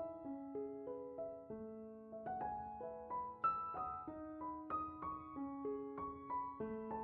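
Soft background piano music: a gentle melody of single struck notes over sustained lower notes.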